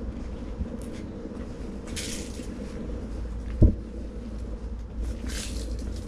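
Handling noises: two short rustles and a single sharp low thump about three and a half seconds in, over a steady low rumble.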